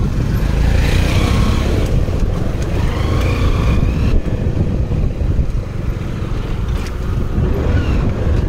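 On-board sound of a motorcycle being ridden: a steady low wind rumble on the microphone over the running engine.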